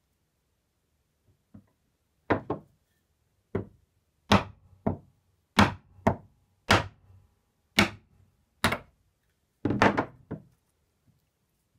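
Wooden mallet striking a chisel held upright on a small block of wood, to split it. Two light taps come first, then about a dozen sharp knocks roughly a second apart, with a quicker cluster of blows near the end.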